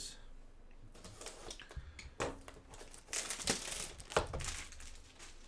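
Crinkling and tearing of plastic packaging on a trading card box being handled and opened, with a few sharp knocks of handling in the middle.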